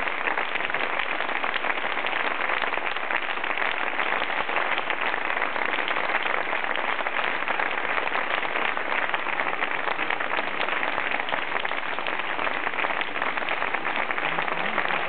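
Audience applauding steadily: dense, even clapping that holds at one level without letting up.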